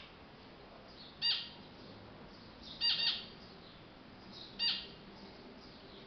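Zebra finches in a cage giving four short calls: one about a second in, a quick pair around three seconds, and another a little before five seconds.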